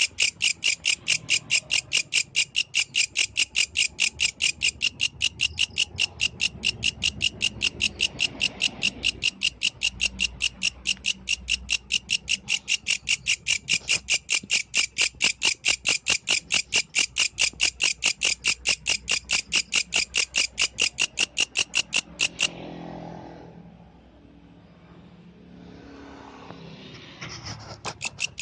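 An insect the uploader calls a yellow grasshopper is stridulating in a fast, even, high-pitched pulsed call of about four to five pulses a second. The call cuts off suddenly about 22 seconds in, and a few seconds of soft rustling follow before it starts again at the very end.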